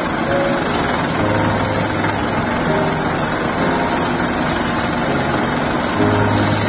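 Small stationary engine powering a rice thresher, running steadily while rice stalks are fed by hand into the spinning threshing drum.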